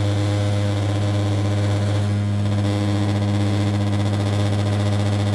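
Cabin sound of a DHC8-Q400 turboprop airliner climbing out after takeoff: a loud, steady propeller drone, a deep even hum with higher overtones, over a constant hiss of engine and airflow.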